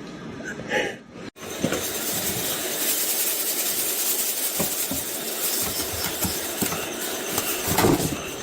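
A steady, loud hissing noise with a few faint clicks in it, starting abruptly about a second in.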